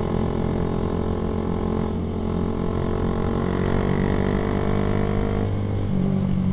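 Motorcycle engine running under way, its pitch climbing steadily for a few seconds as the bike accelerates, then dropping about a second before the end, with wind rumbling on the microphone.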